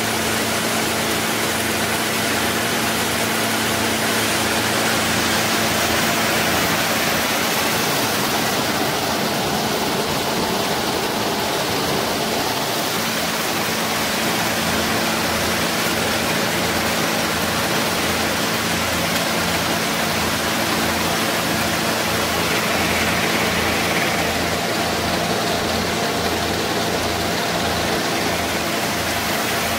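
Peanut shelling machine running steadily: a constant machine hum under a dense rushing of peanuts passing through the sheller.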